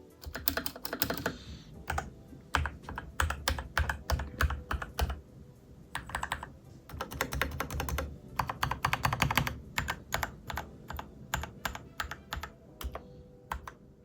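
Typing on a mechanical keyboard: a rapid clatter of keystrokes in fast runs, with slower single key presses in between.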